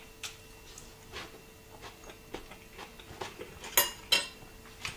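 Metal fork clinking and scraping against a ceramic plate while picking up food: a string of light clicks, with two sharper clinks near the end.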